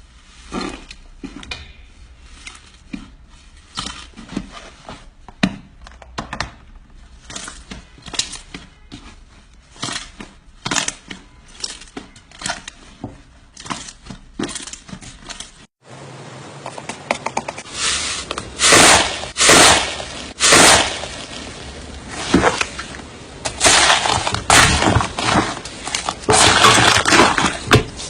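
Slime being pressed and squeezed by hand, giving many short crackling pops of trapped air. The crackles turn much louder and denser after a brief break about 16 seconds in.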